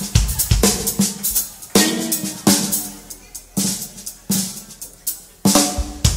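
Live band playing loud accented hits together on drum kit, electric guitar and bass guitar. Each hit is left to ring and die away before the next, at uneven intervals.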